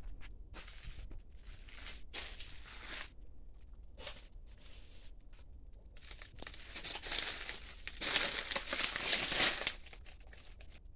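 Dry leaves and plant litter rustling and crinkling as someone walks and brushes through banana plants, in irregular bursts, loudest about eight seconds in and stopping suddenly shortly before the end.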